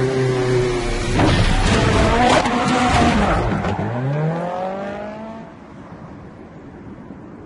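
Rally car engine running at steady revs, then a burst of tyre skidding and engine noise about a second in. Near the end the engine pitch rises and the sound fades away.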